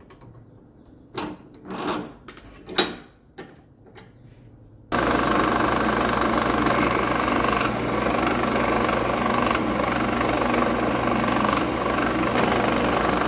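A few short knocks of metal being handled, then about five seconds in a drill press cuts in suddenly and runs steadily, its small bit drilling pin holes through the annealed steel tang of a knife blank.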